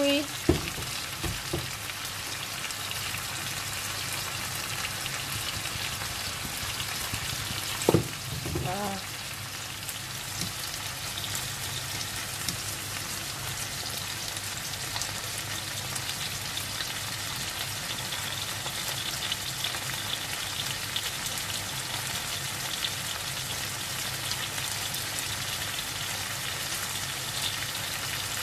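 Sliced tomatoes and onions frying in oil in a frying pan: a steady sizzle with fine crackling. A sharp knock about eight seconds in stands out above the sizzle.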